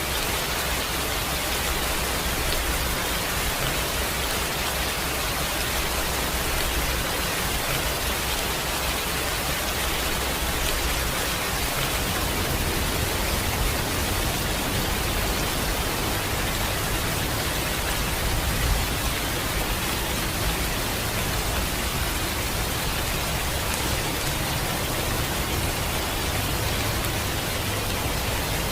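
Steady rain, an even, unbroken hiss, with a low rumble coming in underneath about twelve seconds in.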